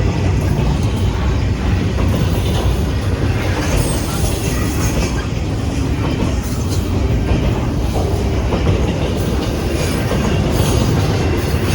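CSX freight train rolling through a grade crossing, the cars' wheels running steadily over the rails with scattered clicks.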